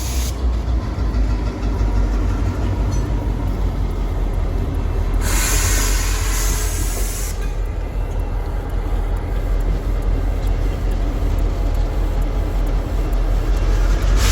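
Freight train rolling past, a steady low rumble of cars on the rails, with a burst of hiss about five seconds in that lasts about two seconds.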